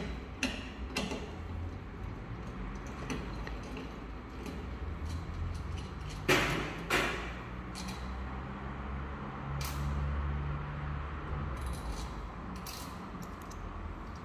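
Small metal clicks and scrapes of a T-handle wrench and cable lugs being worked onto a solar inverter's PV input terminals, with sharper knocks about six and seven seconds in. A low steady hum runs underneath.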